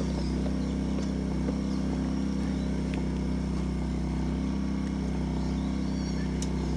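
A second small portable generator running steadily under the load of a split-system air conditioner, its engine held at the higher speed it picked up when the compressor came back on.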